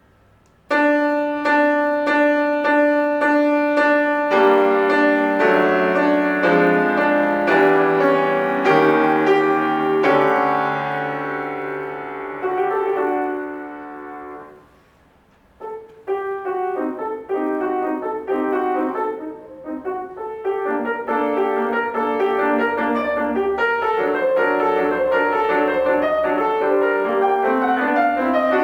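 Solo piano playing classical music: repeated chords, then flowing passages, with a brief pause about halfway before a denser run of notes.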